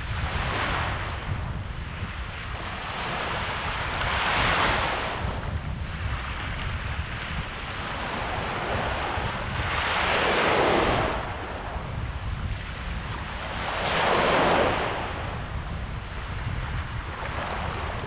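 Small waves breaking and washing up a sandy beach, a hissing surge swelling and fading every few seconds, three of them louder than the rest. Steady wind rumbles on the microphone underneath.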